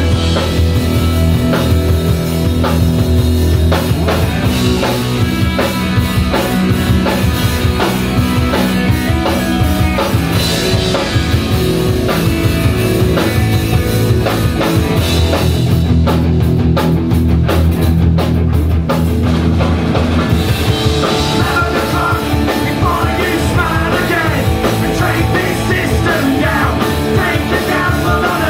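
Punk rock band playing live and loud: distorted electric guitars over a driving drum kit, heard from within the crowd.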